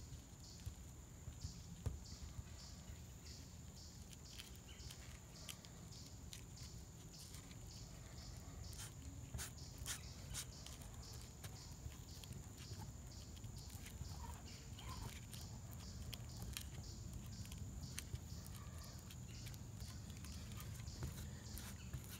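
Faint outdoor background with an insect chirping in a steady rhythm, about two to three chirps a second, over a low rumble, with a few scattered faint clicks.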